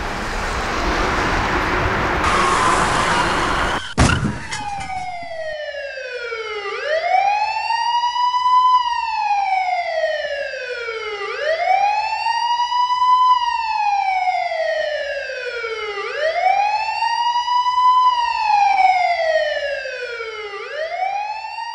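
A rush of car noise builds and ends in a sharp bang about four seconds in. Then an emergency siren wails, sweeping up quickly and sliding down slowly, about once every four and a half seconds.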